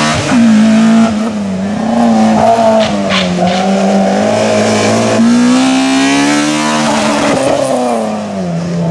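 Small Fiat Seicento hillclimb race car at full throttle, its engine note climbing and dropping through gear changes and lifts into the bends. A short tyre squeal comes about three seconds in.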